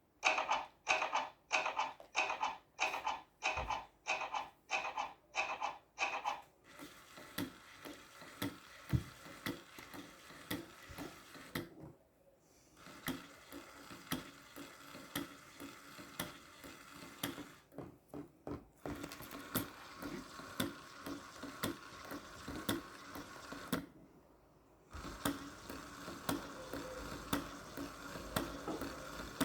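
Lego washing machine model's plastic mechanism running. It starts with sharp clacks, two or three a second, for about six seconds, then turns to a steady whirring rattle full of fast ticks that stops briefly three times.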